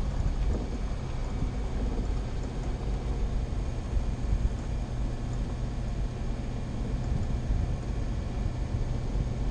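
Vehicle driving along a dirt road: a steady low rumble of engine and tyres on the unpaved track, with no change in speed.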